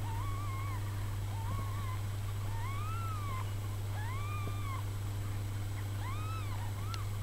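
Newborn kittens mewing: about six short, high-pitched cries that rise and fall, over a steady low hum.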